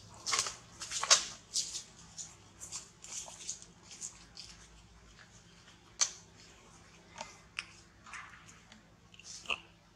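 Short, irregular crackles and rustles, several a second at first and sparser later, the loudest about a second in.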